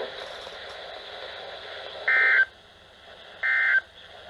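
NOAA Weather Radio sending the EAS end-of-message data bursts after a severe thunderstorm warning: a couple of seconds of radio hiss, then two short, loud buzzy digital bursts a little over a second apart.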